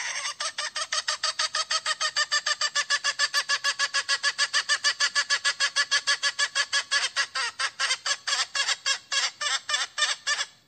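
A junglefowl hen giving a long, fast run of repeated clucking notes, about seven a second, slowing a little near the end. This is the hen's 'kɔ̌i' call for attracting a rooster.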